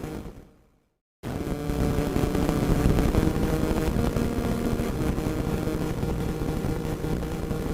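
Radio static: a steady hiss and crackle with a faint droning tone in it. It fades out within the first second, goes silent for a moment, then cuts back in abruptly just over a second in.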